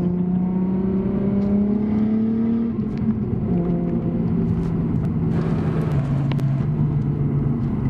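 Single-turbo Nissan RB26DET straight-six in an R32 Skyline GT-R pulling under load, its note climbing steadily. About three seconds in the pitch drops and the engine runs on steadier. From about five seconds in a rougher, hissier sound rides on top of it.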